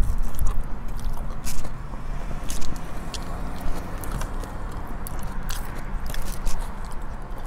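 Person biting and chewing a burger, with scattered wet mouth clicks and smacks over a steady low hum.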